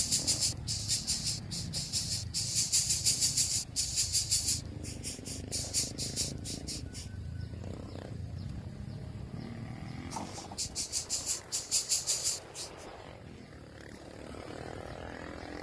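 A rapid, high-pitched pulsing chirr, an animal call, comes in two bursts, a long one at the start and a shorter one about ten seconds in, over a low, steady background rumble.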